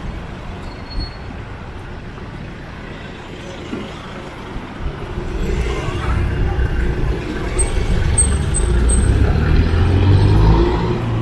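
Street traffic, with a jeepney's diesel engine running close by. Its low rumble grows louder from about halfway and peaks near the end.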